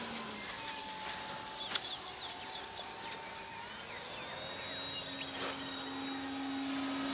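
Hanger 9 RV-8 radio-controlled model plane flying high overhead, its motor a distant steady drone whose pitch shifts as throttle and distance change.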